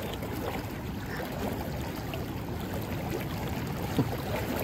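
Steady rush of river current flowing over rocks, with one brief, sharper sound near the end.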